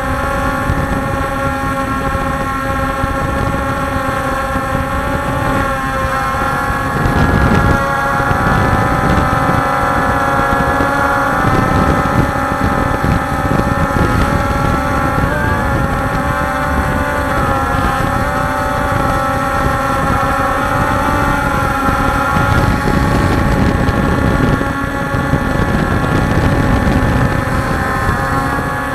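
Multirotor drone's motors and propellers whining steadily, the pitch wavering now and then as it manoeuvres, with wind rumble on the microphone underneath.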